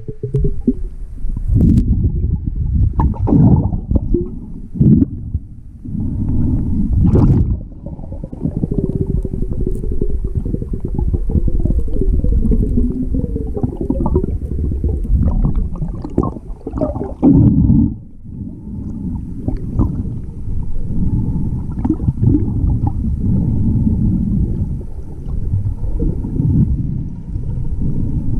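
Underwater sound picked up by a submerged camera: dull, muffled low rumbling and sloshing of moving water, broken by scattered knocks and scrapes and a few short wavering creaks.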